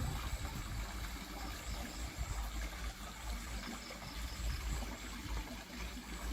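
Water from a small concrete fake-rock waterfall trickling and splashing steadily into a garden pond, with a low rumble underneath.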